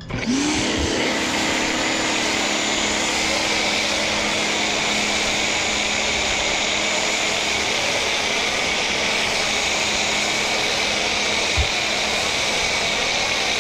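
Pressure washer spraying snow foam through a foam cannon. The machine starts with a quick rising whine that settles to a steady pitch, then runs steadily under the loud hiss of the foam spray.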